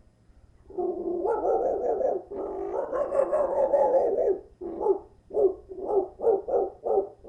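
A man imitating dog barking with his voice: two long drawn-out sounds, then a quick run of about eight short barks.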